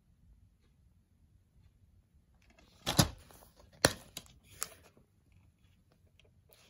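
A plastic DVD keep case being handled and opened: a few sharp plastic clicks and knocks about halfway through, the first one the loudest, after a nearly silent start.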